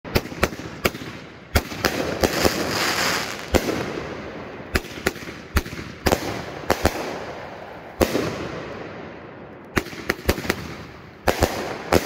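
Consumer firework cakes going off: a rapid, irregular string of sharp bangs as shells launch and burst overhead, about two dozen in all, with a hiss between the bangs that swells and fades.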